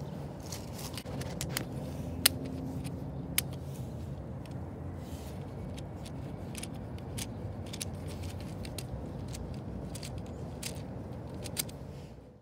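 Light plastic clicks and rattles from a LEGO Technic V8 engine model being handled in the hand, two sharper clicks a little after two and three seconds in, over a steady low background rumble.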